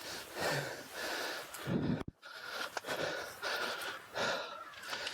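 A person breathing heavily, with a run of rhythmic, noisy breaths about one a second.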